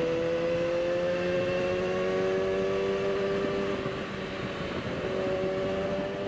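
Sport motorcycle engine running under light throttle while cruising, its note rising slowly, over steady road and wind noise.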